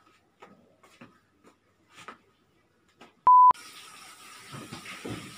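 A single loud, pure beep tone, about a quarter of a second long, edited into the soundtrack about three seconds in. Before it come a few faint scattered taps; after it a steady hiss of room noise with a few soft thumps.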